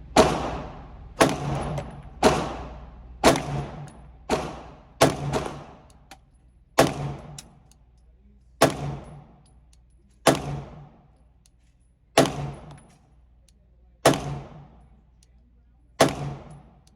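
Glock 19 pistol firing 124-grain 9mm rounds in slow, single aimed shots, about a dozen of them. Each shot is a sharp crack with a short ringing tail. They come about once a second at first, then spread out to roughly one every two seconds.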